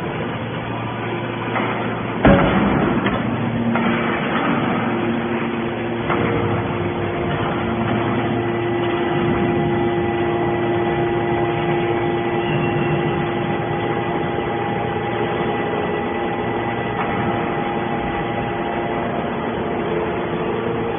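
Hydraulic scrap metal baler running: a steady machine drone with held tones, and one loud metal bang about two seconds in, followed by a few lighter knocks.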